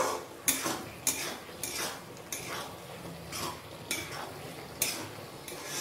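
Metal spatula scraping and knocking against a wok while stirring a thick mash of giant taro, in regular strokes about two a second.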